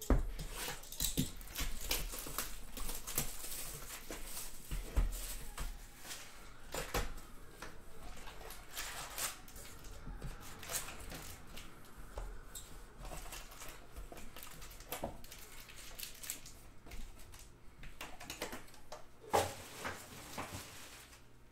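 Sports-card boxes and wrappers being handled and opened on a tabletop: irregular rustling, tapping and clicking of cardboard and plastic, with a few louder knocks.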